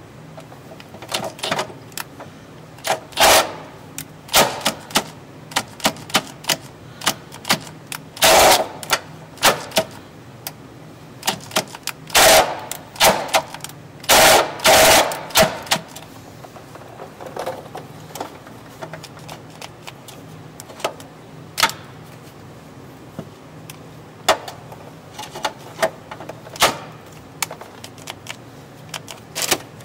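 Milwaukee Fuel cordless power tool run in short, irregular bursts against the steel of the vehicle's underbody, each burst well under a second to about a second long, while holes are being enlarged.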